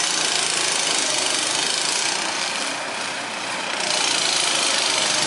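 Vỏ lãi longtail boat engine running steadily. Its level dips a little around the middle, then picks up again about four seconds in, as the engine revs up by itself when the long propeller shaft is pressed down.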